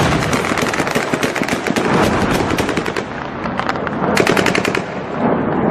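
Sustained automatic gunfire: rapid strings of heavy machine-gun shots, thinning briefly about halfway, then a denser, louder burst about four seconds in.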